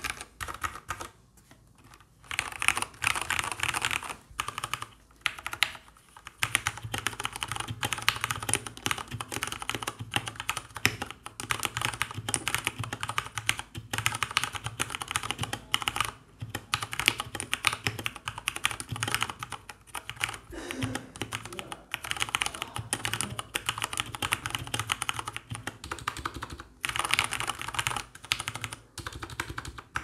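Fast typing on a FirstBlood B16 mechanical keyboard with double-shot PBT keycaps, first on Cherry MX Red switches, then on Cherry MX Brown switches. The keys give a dense, rapid run of clacks, with a short pause about a second in.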